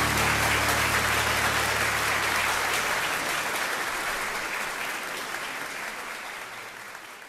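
Concert audience applauding, with the band's last held chord dying away under it in the first second or so; the applause then fades out steadily.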